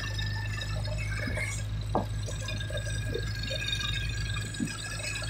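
Vehicle engine running steadily under road noise, with faint high steady tones above.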